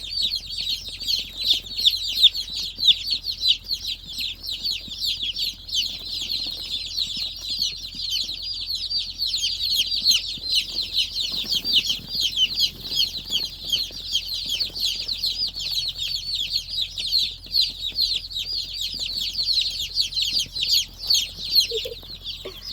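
A large flock of young meat-bird chicks peeping nonstop: a dense chorus of short, high, falling peeps that overlap continuously.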